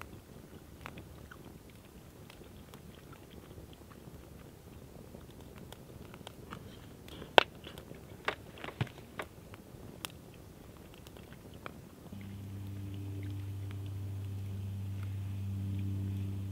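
Wood campfire crackling softly, with scattered sharp pops, the loudest about seven seconds in and a few more just after. About twelve seconds in, a low steady droning tone comes in and grows louder.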